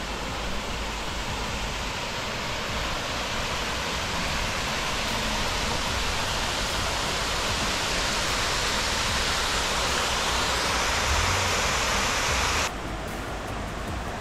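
Stream water pouring over a small stone weir into a pool: a steady, dense rushing that grows slightly louder and drops away suddenly near the end.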